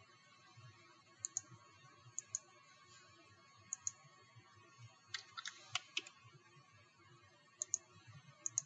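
Faint computer keyboard keystrokes and clicks, sparse and scattered, with a quicker run of them about five seconds in, as text is typed into a web form.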